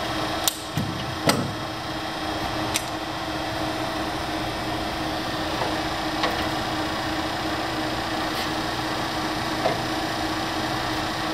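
Warner & Swasey No. 3 ram-type turret lathe running with a steady hum. A few sharp metallic clunks come in the first three seconds as the turret handwheel and levers are worked.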